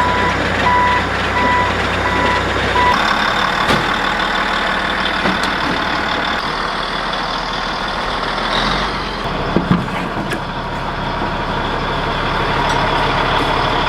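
Diesel heavy equipment running, with its backup alarm beeping steadily for about the first three seconds and then stopping, followed by the engine and a few clanks.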